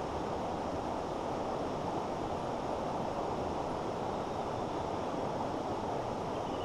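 Shallow mountain stream running over rocks and gravel riffles: a steady, even rush of water.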